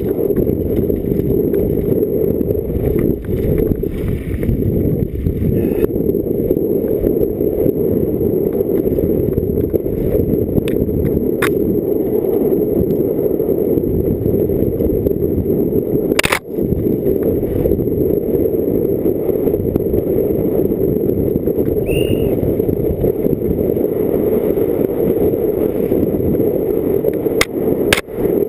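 Wind buffeting an action camera in its housing, with the rumble and rattle of a downhill mountain bike running fast over a rocky trail. A few sharp knocks from the bike hitting rocks, the loudest about sixteen seconds in.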